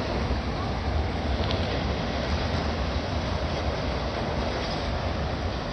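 Freight train rolling past, a steady rumble of wheels on the rails.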